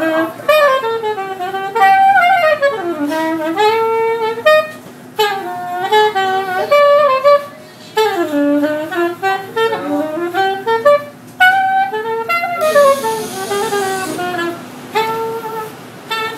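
Soprano saxophone played solo: a jazz melody in quick, winding phrases, with short pauses for breath between them.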